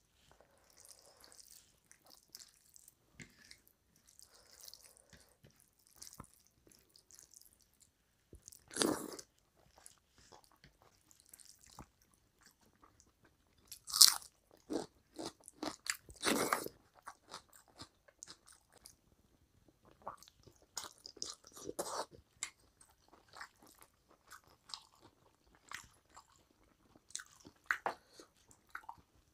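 Close-up eating sounds of a person eating rice and curry by hand: wet chewing, lip smacks and the squish of fingers mixing rice with curry, in short irregular bursts. A few louder mouth sounds come near the middle.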